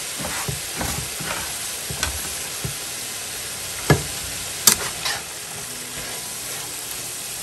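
Shredded cabbage, green beans and carrot sizzling in a frying pan while being stirred and tossed with a spatula, with scraping strokes and two sharp knocks of the spatula on the pan about four and five seconds in.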